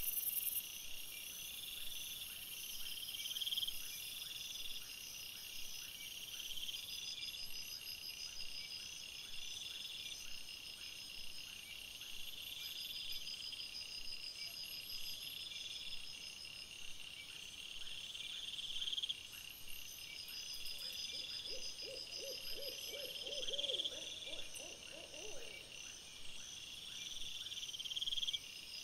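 Crickets or other night insects chirping steadily, with a repeated chirp about every second and a half over a constant high trill. About three-quarters of the way through, a lower, rapidly pulsed animal call joins in for a few seconds.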